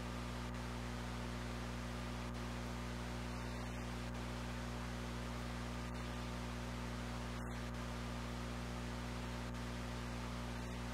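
Low, steady hiss with an electrical hum under it, the background noise of VHS camcorder tape playback.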